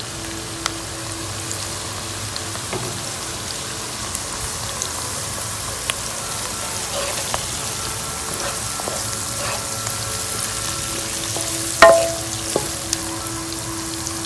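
Onions, green chilies and garlic frying in oil, sizzling steadily while turmeric, chili powder and salt are stirred in with a wooden spatula, with small scraping clicks. A sharp knock near the end.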